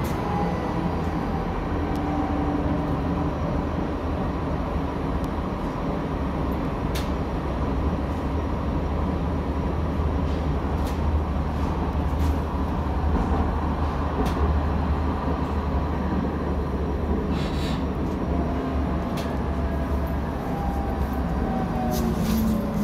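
Light-rail tram running along street track, heard from inside at the front: a steady low rumble with a faint motor whine that rises near the end, and a few short sharp clicks.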